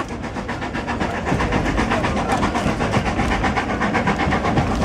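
Steam locomotive chuffing in a steady, fast, even rhythm, heard from inside a passenger carriage over the low rumble of wheels on the rails.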